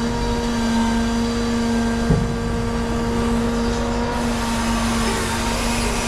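A machine's engine running steadily at a constant speed, with a single short knock about two seconds in.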